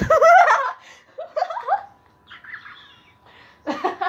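Bursts of high-pitched laughter, several short fits of rapid pulsing giggles, with a sharp knock right at the start.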